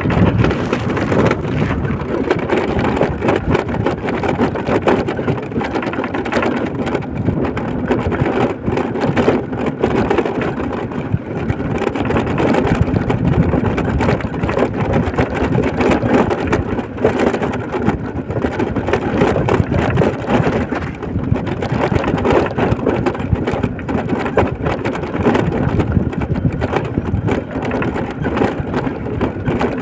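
A vehicle travelling along a road: steady engine and tyre noise.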